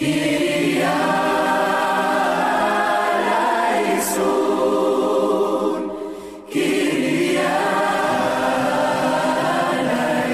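A choir singing in long held phrases, breaking off briefly about six seconds in before the next phrase starts.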